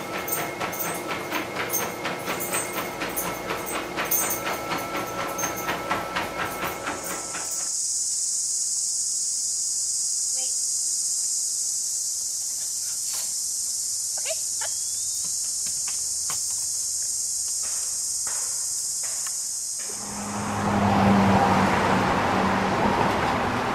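A motorised treadmill runs with a steady whine under the regular footfalls of a Siberian husky trotting on the belt. About seven seconds in, this gives way to a steady high-pitched insect chorus with a few faint clicks. Near the end comes street traffic, with a vehicle going by.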